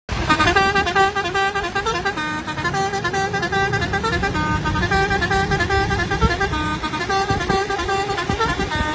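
A bus's multi-note musical horn playing a tune, its notes stepping up and down and repeating over and over, over a low engine and road rumble.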